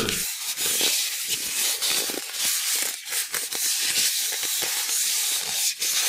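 Two pieces of styrofoam (expanded polystyrene foam) rubbed against each other, giving a scratchy, hissing rub in quick, uneven strokes.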